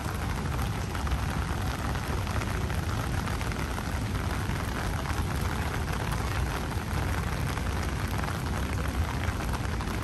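Steady rain falling on wet pavement, a dense even hiss, with a low rumble underneath.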